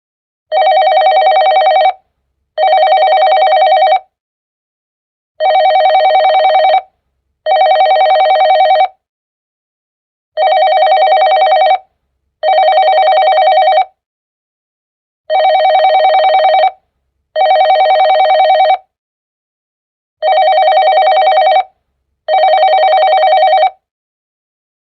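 Digital office phone ringtone: an electronic ring sounding in pairs of bursts, each about a second and a half long, the pair repeating five times with a short pause between pairs.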